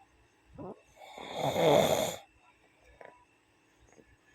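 A person snoring: one loud snore about a second in, preceded by a short faint rising breath, with the next snore starting at the very end.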